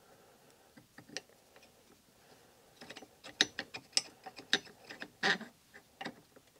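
Light metallic clicks and taps from a ground silver-steel rod being worked through a connecting rod's bronze small-end bush and a steel feeler gauge blade touching it, checking the freshly reamed bush for play. Sparse at first, then a quick run of clicks from about halfway, with a short scrape near the end.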